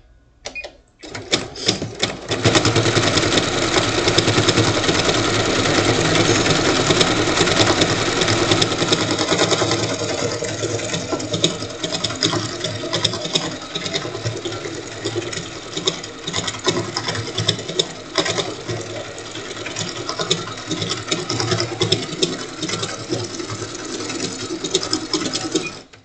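Sewing machine stitching a decorative stitch along the seams of a quilt block. It starts about two seconds in, runs steadily with a fast needle rhythm, grows somewhat quieter after about ten seconds and stops just before the end.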